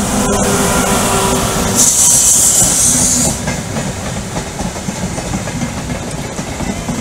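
An electric locomotive followed by vintage green passenger coaches passing close by: a loud, steady rumble with a loud hiss about two seconds in while the locomotive goes by. From about halfway through comes the clickety-clack of the coaches' wheels over the rail joints.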